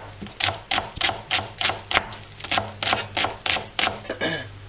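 Kitchen knife chopping vegetables on a cutting board: quick, even strokes, about four or five a second, stopping near the end.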